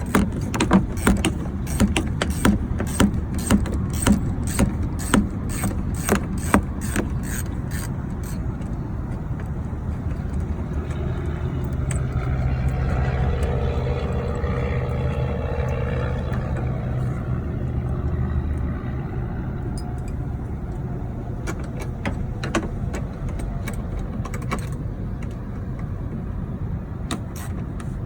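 Ratchet wrench clicking in quick strokes for several seconds as a clamp is taken off, then a low engine hum swells and fades in the middle, with a few scattered clicks near the end over a steady low rumble.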